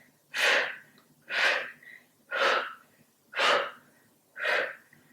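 A woman's forceful exhalations through the mouth, five short puffs about one a second, breath paced to side-to-side torso twists in a yoga core exercise.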